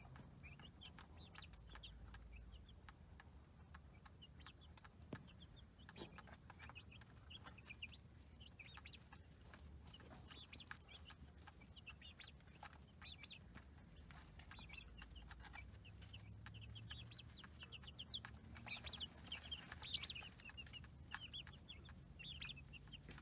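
Baby chicks peeping: many short high calls overlapping, faint, busiest near the end.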